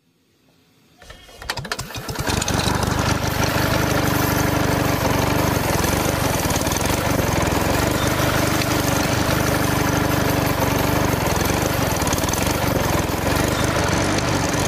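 Small motor of a miniature model engine-driven water pump starting up about a second in, then running steadily with a fast, even pulse.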